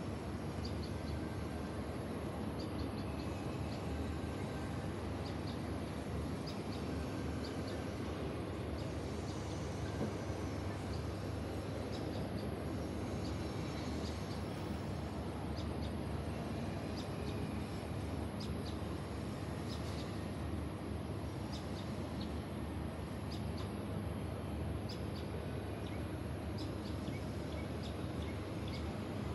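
Steady hum of a high-rise housing estate, with birds chirping now and then in short, high calls.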